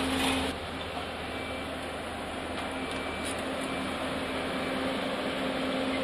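Volvo DD100 road roller's diesel engine running steadily with a constant hum as the roller drives over a row of motorcycle silencers.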